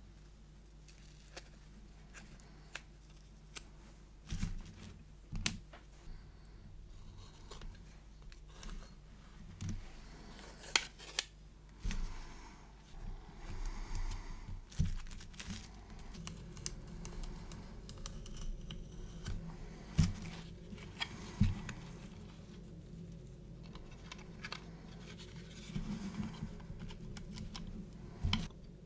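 Masking tape being peeled off painted plastic model aircraft wings: short, quiet rustling pulls among scattered light clicks as the plastic parts and a small metal tool are handled.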